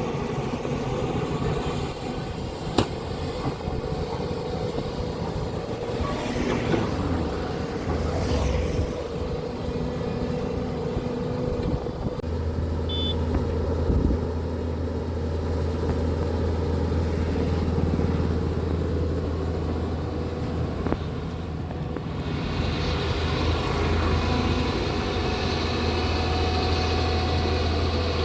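Hyundai SMART 215L excavator's diesel engine running steadily as it works, a constant low hum that grows stronger about halfway through. A single sharp click sounds about three seconds in.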